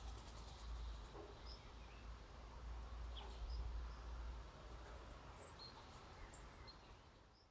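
Wind rumbling on the microphone in open grassland, with faint, short high chirps of distant small birds scattered through. It fades out near the end.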